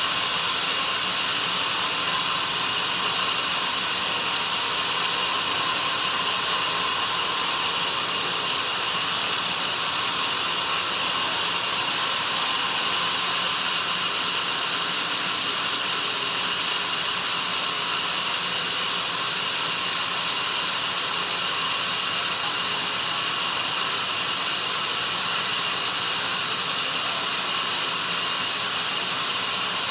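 Sawmill band saw running through a log: a steady, high-pitched sawing noise that eases slightly about 13 seconds in.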